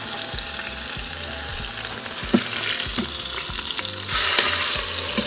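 Chuck roast searing in hot oil in an Instant Pot's steel insert, sizzling steadily, with a few clicks of metal tongs against the pot as the meat is turned. About four seconds in, the sizzle jumps louder and hissier as the flipped raw side meets the hot oil.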